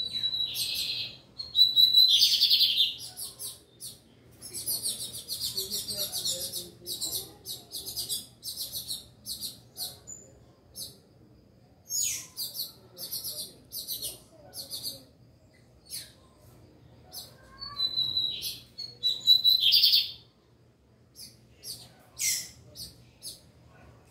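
Lined seedeater (bigodinho) calling and singing in short bursts: many brief high chirps and a buzzy rapid trill about five seconds in. Twice, near the start and again near the end, a held high note breaks into a loud harsh burst.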